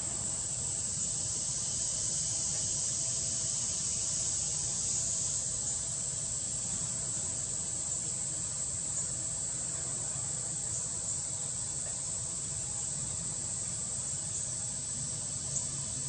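Steady, high-pitched drone of an insect chorus, with a couple of faint short chirps near the end.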